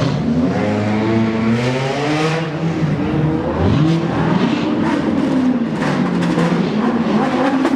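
Sports car engines revving and accelerating, several in turn, the pitch climbing and dropping repeatedly.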